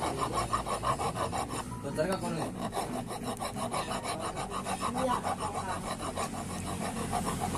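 Steel hand file rasping back and forth in quick, even strokes across a freshly recast lead battery terminal post, smoothing the cast lead down, with a brief break about two seconds in.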